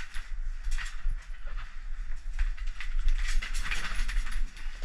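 Irregular clicking and rattling of handled gear as a catch pole jammed in the vending machine is worked at and a wire cage trap is jostled, over a low rumbling handling noise.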